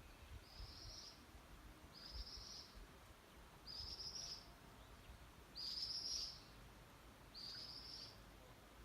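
A bird calling faintly: the same short, high call repeated five times, about every one and a half to two seconds.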